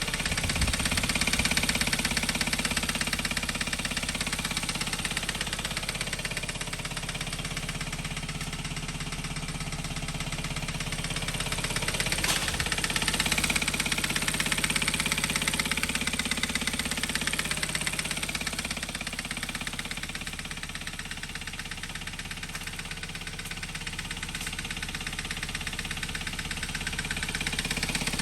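Hyundai Veloster 1.6 turbo engine running with a rapid, regular knocking from inside the engine, swelling and easing slightly. The mechanic takes it for an internal engine fault common on this model, one that calls for new pistons and connecting rods.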